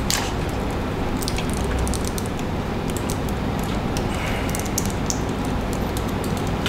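Small, irregular clicks and ticks of a Threezero DLX Ravage action figure's joints and metal-and-plastic parts being worked by hand as its legs are folded, over a steady low electrical hum.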